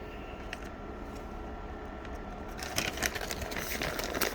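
Plastic-insulated Cat 5 wires being handled by hand: a few faint ticks, then from about two and a half seconds in a run of small clicks and rustling as the wires are gathered for the connector, over a steady low hum.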